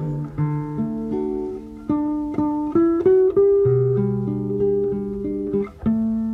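Acoustic guitar playing alone, picking single notes and chords of a Brazilian folk tune.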